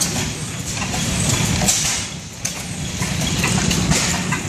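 Antique horizontal stationary engine running, its belted flywheel turning, with a steady low rumble and uneven clatter.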